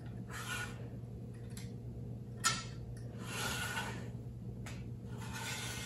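Handling noise at a workbench: soft rubbing and rustling as a plastic model hull and a squeeze bottle of glue are handled, with a single sharp click about two and a half seconds in, over a steady low hum.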